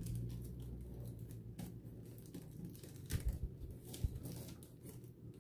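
Faint rustling and scattered light clicks of artificial flower stems and foliage being handled and pushed into a wreath by hand.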